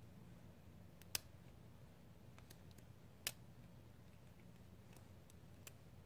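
Faint metallic clicks of a lock pick working the pins of a 2-inch brass padlock, over near silence. Two sharper clicks stand out, about a second in and about three seconds in, with a few softer ones between.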